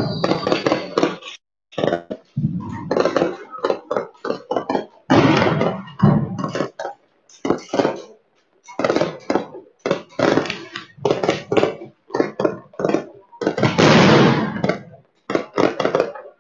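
Fireworks going off overhead: rapid, irregular bangs and crackles in clusters, one after another, with a longer, denser volley about fourteen seconds in.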